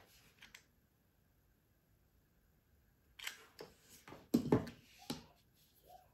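Handling noises from a small twine-wrapped cardboard cone and its gold jewellery cord being turned and pressed by hand: a few short clicks and rustles starting about three seconds in, the loudest about four and a half seconds in.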